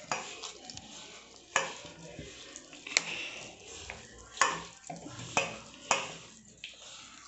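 Hand mixing a damp, crumbly batter of semolina, maida and rice flour in a steel bowl: a soft rustling scrape, broken by about six sharp knocks against the bowl.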